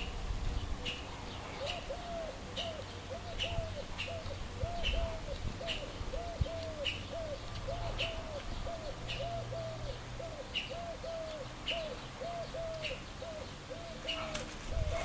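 Garden birds: a low cooing call of short rising-and-falling notes repeated over and over, starting about a second and a half in. Small birds chirp high and short throughout.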